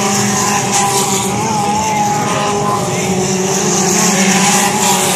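Several dirt-oval race cars' engines running at racing speed around the track, a steady mix of engine notes at several pitches over the noise of the cars.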